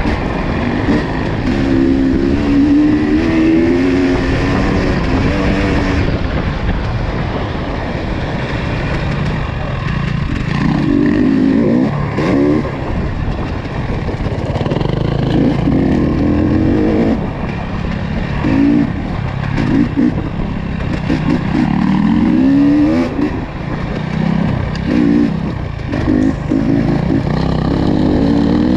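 Off-road vehicle engine running under changing throttle, its pitch rising and falling again and again, with frequent short blips of revs.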